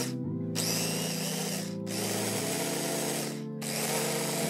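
Electric blender running in three bursts of about a second and a half with brief pauses between them, blending parsley, garlic, chili and oil into a marinade.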